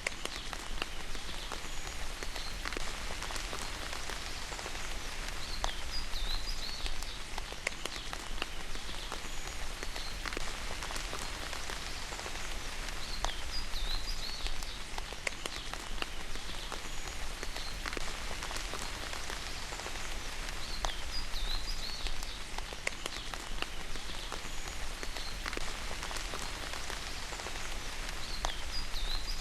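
Steady rain falling, with individual drops tapping close by. A short high chirping call recurs about every seven seconds.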